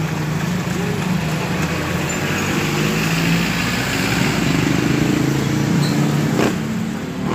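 A steady engine-like hum with a low drone, plus a short sharp knock about six and a half seconds in.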